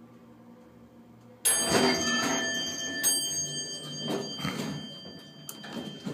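Westinghouse elevator's arrival 'dinner bell' struck twice, about a second and a half apart, each strike ringing on with a bright metallic tone. It cuts in over a faint low hum, and a few softer knocks follow.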